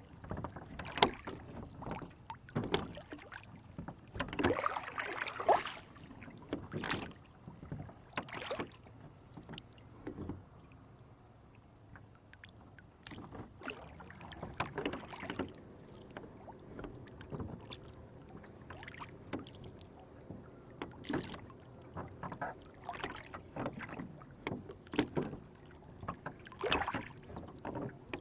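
Lake water splashing and sloshing against a small wooden rowboat, in irregular bursts a second or two apart, with a quieter lull partway through.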